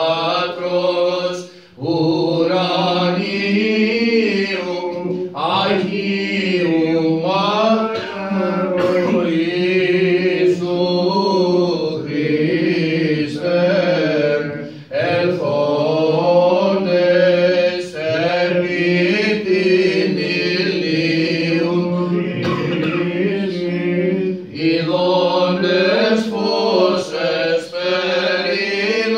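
Byzantine chant: a single cantor singing a slow, melismatic Orthodox hymn, the voice held on long vowels and bending through ornamented turns, with short breath pauses about two seconds in and again about halfway through.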